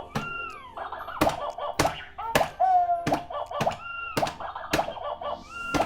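Toy whack-a-mole game in play: its electronic speaker gives out short repeating beeps and sliding tones, with a sharp plastic hammer hit on a mole roughly every half-second to second, about nine hits in all.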